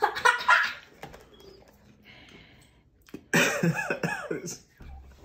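A man coughing sharply a few times, spluttering on the spice of the super-hot chip crumbs he has just eaten. About three seconds in comes a short burst of voiced, laughing sound.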